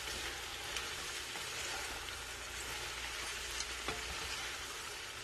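Shredded cabbage sizzling in hot oil in a pot as it is stirred with a wooden spatula, sautéing to soften. The sizzle is steady, with a few light scrapes of the spatula.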